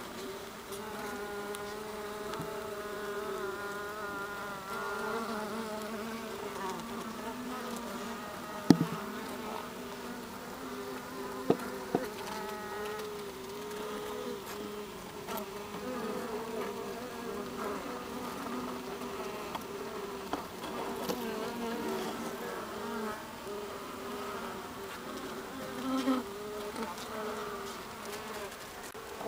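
Honeybees buzzing right at the microphone inside the hive, a steady hum of several overlapping pitches that waver as the bees move past. Three sharp knocks cut through it, one about nine seconds in and two near twelve seconds.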